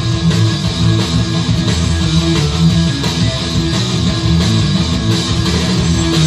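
Heavy metal music: electric guitar over bass and a drum kit, playing steadily without a break.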